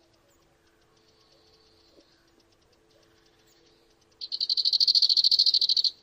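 An insect's loud, rapidly pulsed buzzing trill, about a dozen pulses a second, starting about four seconds in and cutting off just before the end, over faint high insect ticking.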